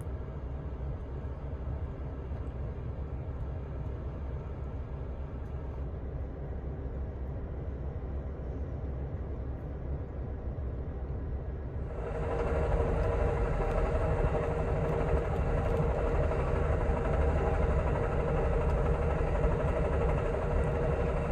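Steady rumble of a moving Amtrak Superliner passenger train, heard from inside the car. About 12 seconds in, the noise turns suddenly louder and brighter and then holds steady.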